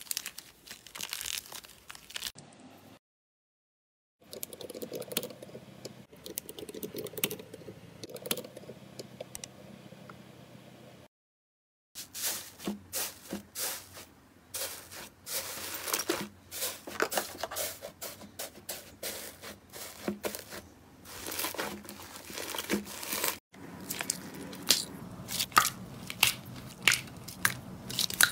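Slime being squeezed, stretched and poked by hand in a run of short clips with brief silent gaps between them: crinkling, crackling and squishing. The later part is full of quick sharp pops and clicks.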